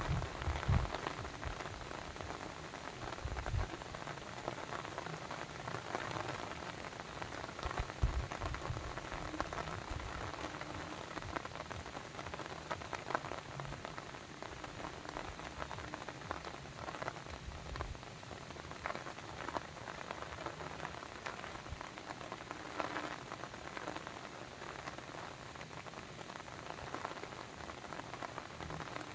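Steady water noise with many scattered drops and splashes, and a few low thumps in the first eight seconds or so.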